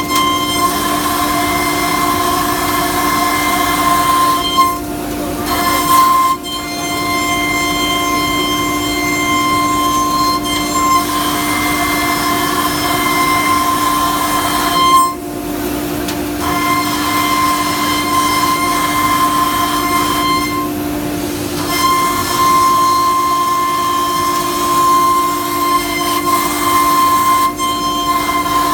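FINECNC FC1325-12 ATC CNC router running with a steady, high spindle whine made of several held tones. The higher tones break off for a moment several times and then return.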